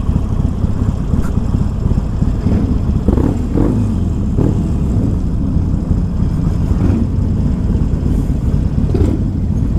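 Harley-Davidson Forty-Eight Sportster's air-cooled 1200 cc V-twin running steadily at low revs through Screamin Eagle Street Cannon mufflers, with no revving.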